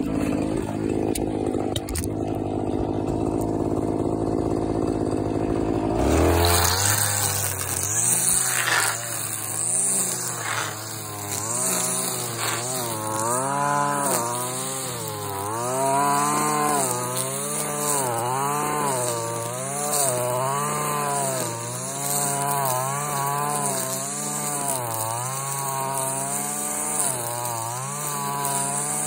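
Stihl gas string trimmer running. About six seconds in its engine pitch starts rising and falling over and over, as the throttle and the load from cutting grass vary.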